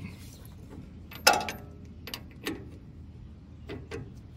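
Socket wrench working on the pitman arm nut under the truck's steering box: a sharp metallic clank with a short ring about a second in, then a few lighter irregular clicks.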